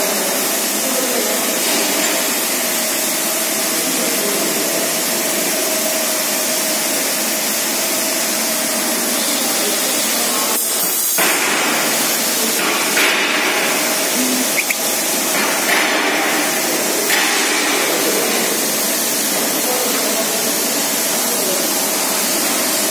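Steady loud rushing workshop background noise with a faint steady hum under it; a few brief, brighter hisses come in the middle.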